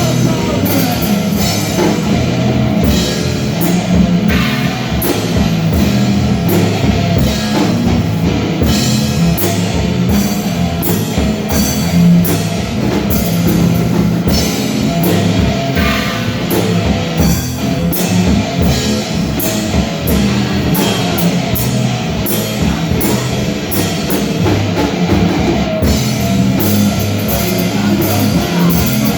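Loud rock music with a driving drum kit and distorted guitar, heavy-metal style.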